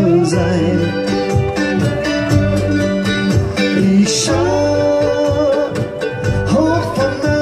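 Live acoustic string band playing a slow song: plucked guitars and mandolin over an upright double bass.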